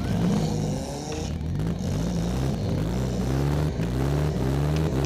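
Demolition derby car's engine heard from inside the cab, revving up and easing off again and again as the car accelerates and manoeuvres, its pitch rising in repeated runs.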